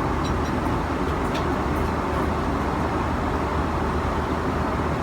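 Steady airliner cabin noise in flight, the constant low rush of engines and airflow, with a couple of faint clicks in the first second and a half.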